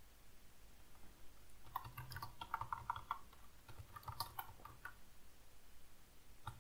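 Computer keyboard being typed on: a run of key clicks about two seconds in, another short run around four seconds, and a couple more clicks near the end.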